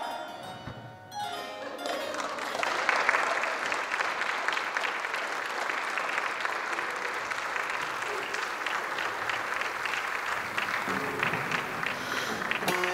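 Applause: many hands clapping, starting about two seconds in and carrying on steadily. Plucked-string music comes in near the end.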